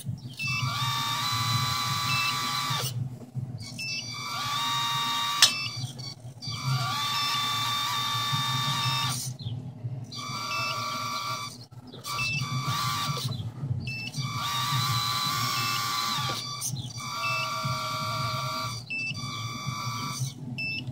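Small electric hydraulic pump motor on a 1:14 RC Scania R620 timber truck whining as the crane boom is worked. It stops and starts again every one to three seconds, and the pitch shifts between runs. The builder says the pump motor isn't powerful enough.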